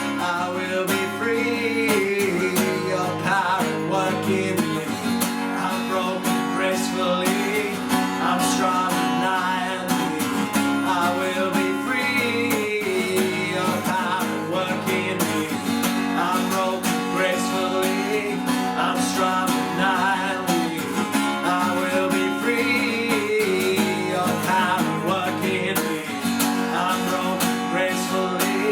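Worship music played on a strummed acoustic guitar, with a steady strum throughout.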